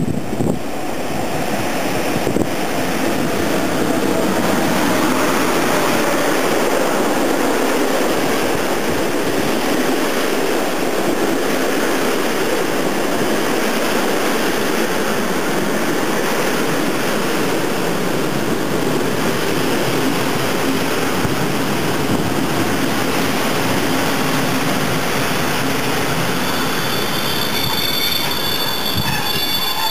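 Passenger train headed by an EU07 electric locomotive, its coaches running past close by with a steady rumble of wheels on rail that swells as it approaches. High-pitched wheel squeals come in near the end.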